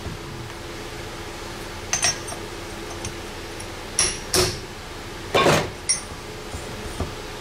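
A handful of short metal clinks and knocks from hands working a motorcycle rear shock absorber apart. The loudest is a brief scraping rattle about five and a half seconds in. A steady low hum runs underneath.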